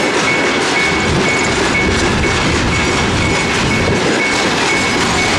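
Freight train rolling through a level crossing with a steady, loud rail noise, while the crossing's warning signal beeps in a high tone about twice a second.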